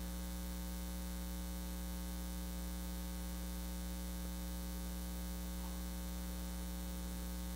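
Steady electrical mains hum: a constant low buzz with evenly spaced overtones, unchanging throughout.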